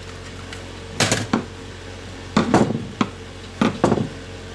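Plastic housing of a digital thermostat clicking and clattering as it is pried apart and handled with a screwdriver, in several short bursts of sharp knocks.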